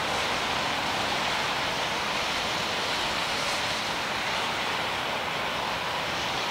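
Boeing 787-8 airliner on final approach, its jet engines heard as a steady rushing noise that neither rises nor falls.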